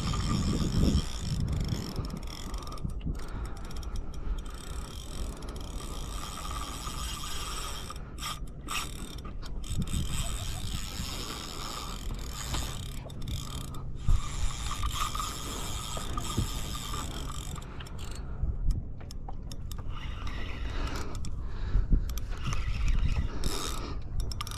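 Fishing reel working under load as a large catfish pulls on the bent rod: a continuous mechanical ratcheting and gear noise, breaking off briefly about three-quarters of the way through.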